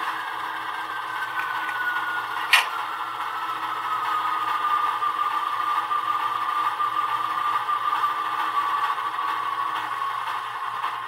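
Soundtraxx Tsunami2 sound decoder playing an Alco diesel engine sound through a small ESU sugar cube speaker in a model locomotive: the engine running with a high whine that slowly falls in pitch throughout. A single sharp click about two and a half seconds in.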